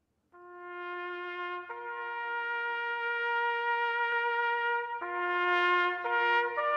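Background music: a slow melody of long held notes with a brass-like sound, beginning just after the start and changing note a few times.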